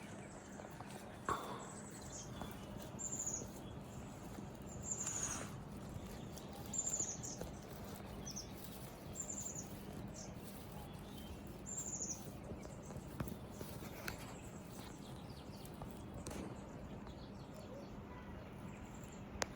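A small bird chirping: a short, very high, falling note repeated every second or two, over faint steady background noise.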